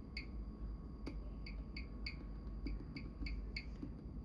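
Bosch Series 4 washing machine control panel giving short, high electronic beeps, about a dozen at uneven intervals. This is the key tone for the options, being set to a new volume level.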